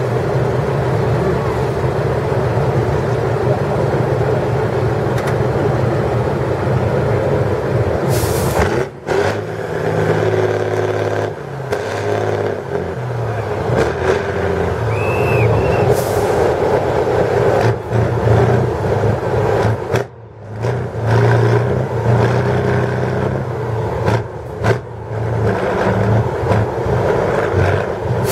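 Tatra 813 8x8 trial truck's diesel engine working under load as the truck crawls through a deep mud pit. The engine revs rise and fall, and the sound drops away briefly twice.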